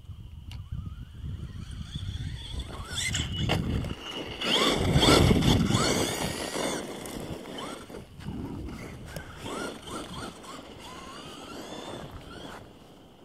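Traxxas Stampede RC monster truck driving on a gravel road: its motor whine rises and falls with the throttle over the crunch of tyres on gravel, loudest about five seconds in.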